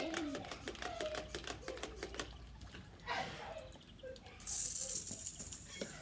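Plastic pump-action water gun rattling with quick clicks, about eight or nine a second, for the first two seconds or so. About four and a half seconds in comes a hiss of spraying water lasting more than a second.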